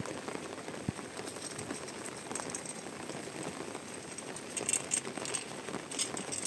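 Steady rain patter, with a sharp knock right at the start and another about a second in, and a run of light clicks near the end.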